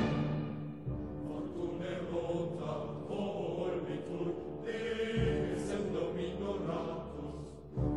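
Slow background music of long held notes, dipping a little just before the end.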